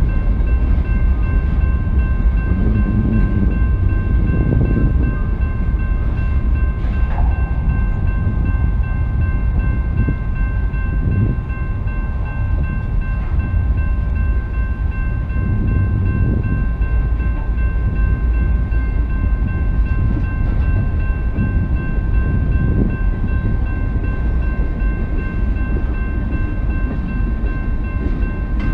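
Freight train of loaded covered hoppers and tank cars rolling past at a grade crossing: a steady, loud rumble of steel wheels on rail with an occasional knock, and a steady high-pitched ringing over it.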